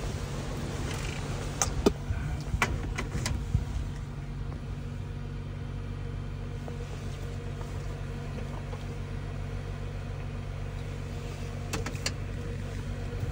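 Steady low hum heard inside a pickup truck's cab in an automatic car wash, from the idling truck and the wash machinery around it. Several sharp clicks or knocks come about two to three seconds in, and two more near the end.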